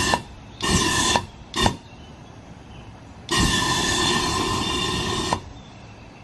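DIY propane-fuelled rocket engine firing in bursts: three short blasts in the first two seconds, then a longer burn of about two seconds starting a little past three seconds, with steady tones running through it. Each burst starts and cuts off abruptly.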